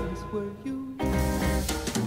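Band music from the closing song in an instrumental gap between sung lines: a sparse, quieter first second, then the full band comes back in about a second in.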